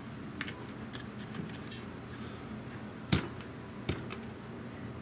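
Two short knocks about three-quarters of a second apart, from tools or a container being handled on a workbench, over a low steady hum.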